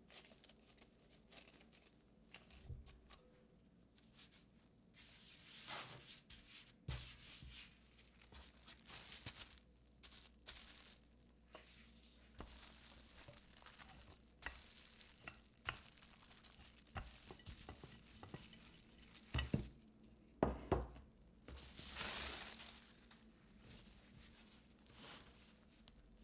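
Scone dough ingredients being stirred and worked in a mixing bowl: quiet, irregular scraping and rubbing, with a few sharper knocks and a brief rustle near the end.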